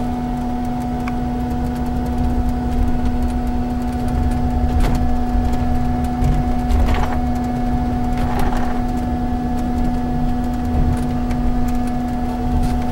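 Bus driving along a street, heard from inside: a steady low drone of engine and road with a constant hum, and a few knocks and rattles around the middle.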